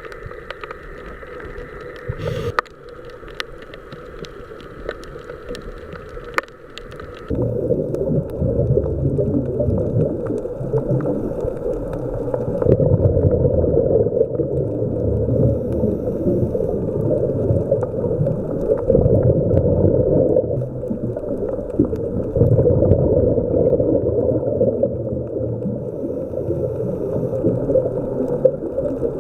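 Muffled underwater gurgling and rumble, the sound of a scuba dive recorded under water, with bubbles and churning water. It jumps suddenly louder about seven seconds in, preceded by quieter sound with a few clicks.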